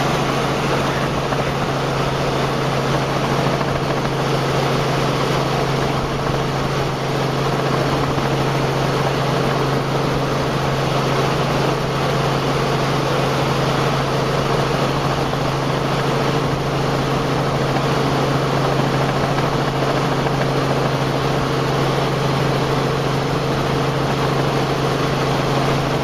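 Steady drone of a helicopter's engine and rotor heard from inside the cabin in flight, a constant low hum over an even rushing noise, with no change in pitch or level.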